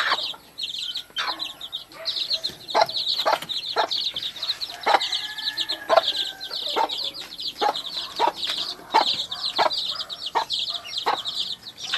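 A brood of chicks peeping constantly in quick high chirps, while the mother hen clucks over and over in short, lower calls about once or twice a second.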